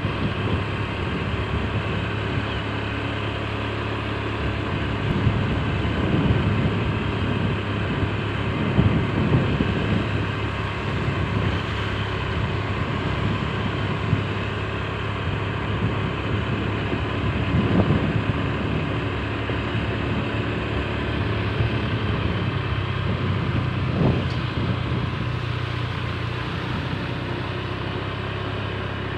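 Small motorcycle engine running steadily while riding, with road and wind noise, and a few brief bumps along the way.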